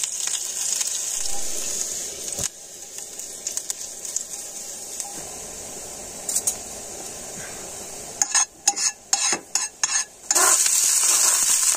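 Chopped garlic and seeds sizzling in hot olive oil in a steel frying pan. The sizzle is loud at first, drops to a softer hiss after a couple of seconds, then a spoon stirs and knocks in the pan for a couple of seconds and the sizzle swells loud again near the end.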